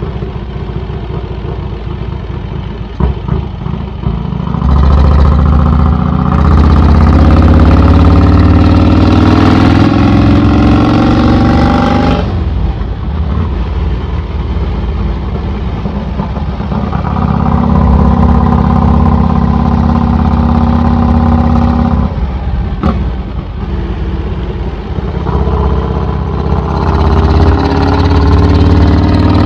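Vincent 1000cc V-twin motorcycle engine running through an open straight-through exhaust while riding, quieter for the first few seconds, then pulling hard with its pitch climbing. The throttle is closed sharply about twelve seconds in and again near twenty-two seconds, each time followed by the engine pulling and climbing again.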